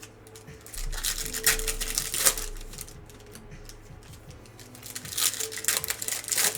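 Crinkling of trading-card pack wrappers being handled, in two bursts of rustling, the first about a second in and the second near the end, over faint background music.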